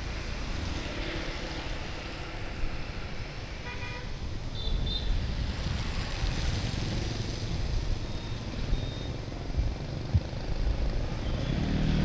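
City street traffic noise from a ride along a wet street, with a short horn beep about four seconds in.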